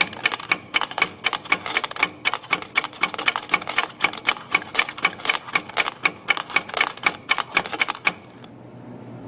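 Rapid, even clicking at a vending machine, about five clicks a second, as its change button is pressed over and over. The clicking stops suddenly about eight seconds in.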